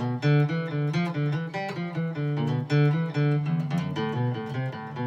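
Guitar playing a blues riff in D low on the neck. An alternating bass-note pattern on the low strings runs under higher chord tones at an even pulse, here the IV-chord (G) shape played a whole step back with open strings.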